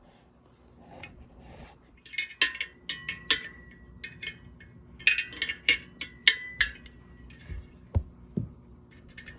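Small steel hardware and tools clinking and rattling as they are handled: quick sharp clinks, some ringing briefly like struck metal, in two busy runs, then a couple of duller knocks near the end.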